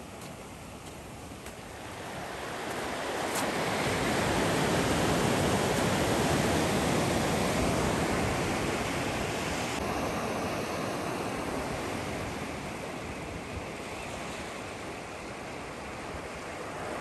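Ocean waves surging and washing on the shore, swelling about two seconds in and then slowly easing, with wind on the microphone.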